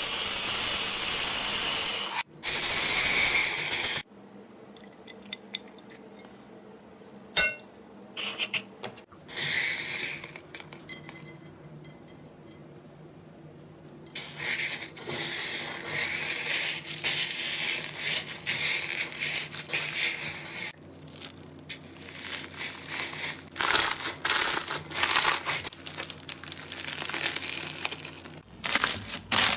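Slime being squeezed, stretched and poked by hand, making a run of irregular crackling, crinkling squishes. A steady hiss fills the first four seconds and then cuts off, and the middle stretch is quieter, with a few sharp clicks.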